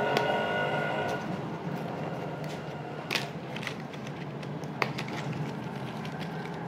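A small cardboard box being opened and handled: light rustling with a few sharp clicks and taps of card. A steady drone in the background stops about a second in.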